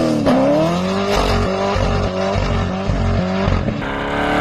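A sports car's engine revving hard and unevenly through a tyre-smoking burnout, its pitch dipping and climbing again and again. Near the end it gives way to a steadier engine note that rises as a car accelerates.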